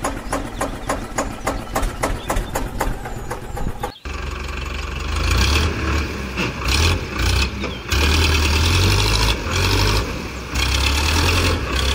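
Tractor engine starting: a fast clattering tick for about four seconds, then it suddenly catches and runs loud with a deep, uneven throb.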